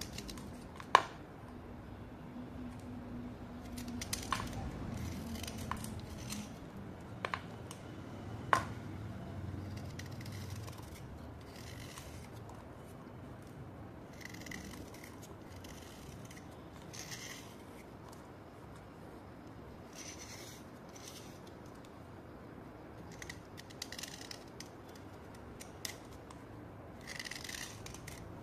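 A blade scraping a wet white slate chip, short rasping strokes that peel off shavings every few seconds, with a few sharp clicks in the first nine seconds.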